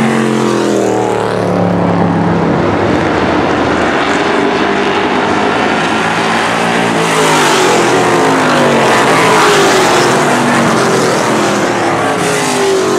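Street stock race cars passing at racing speed on an oval track, one engine note after another dropping in pitch as each car goes by. The sound is loudest when the main pack passes, from about seven seconds in.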